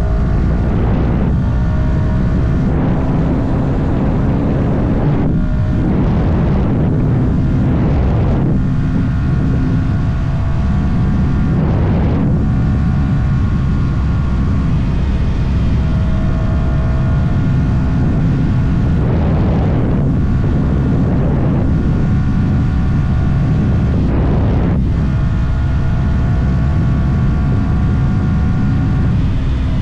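Yamaha R125's 125 cc single-cylinder four-stroke engine pulling under way on its stock exhaust, its pitch shifting and breaking off several times as the rider changes gear, with heavy wind rumble on the microphone.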